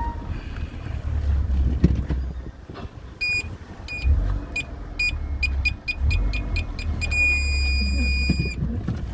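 Car parking sensor beeping over low engine and cabin rumble. The beeps come faster and faster, then merge into one continuous tone about seven seconds in, the sign that the car is reversing very close to an obstacle.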